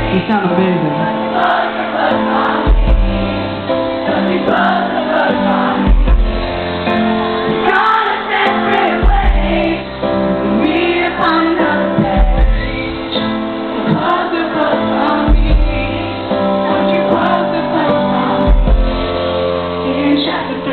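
Pop-rock band playing live with a male lead singer singing over it, picked up loud and dull-topped on a camera microphone in the audience.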